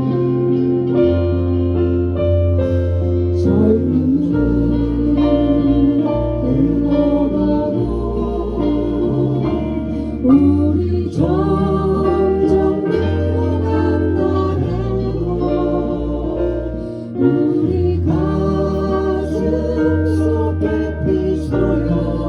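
A live band playing a song with a singer, over a bass line that holds each note for a second or two.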